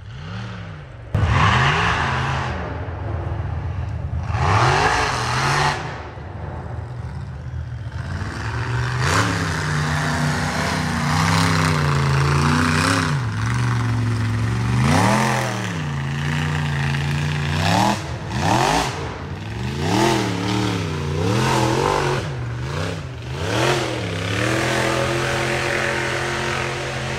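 Race off-road buggy engine revving hard and dropping back, over and over, as the throttle is worked. The engine gets suddenly much louder about a second in.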